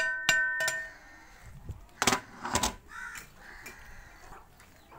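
A long metal ladle knocked twice against the rim of a large aluminium cooking pot (deg), each knock ringing out briefly. About two seconds later come two short, harsh noises.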